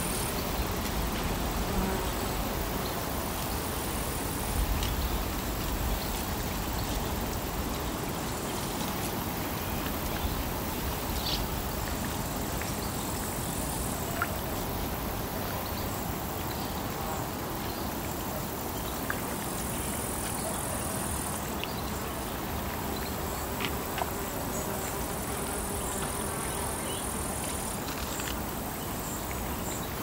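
Outdoor morning ambience: a steady hum of distant road traffic under a high insect buzz that swells and fades in stretches of a few seconds, with a few faint bird chirps.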